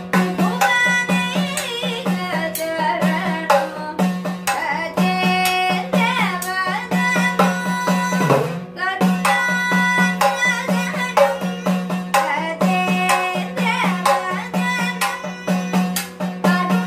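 A boy singing Sopana Sangeetham, the Kerala temple song, while playing the idakka, an hourglass drum struck with a stick in quick, steady strokes under the gliding vocal line.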